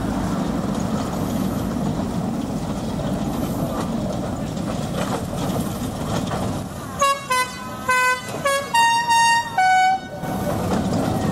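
Small narrow-gauge mine locomotive running as it pulls its mine cars around a curve; about seven seconds in its horn sounds a quick run of about eight short toots at changing pitches, like a little tune, before the running noise returns.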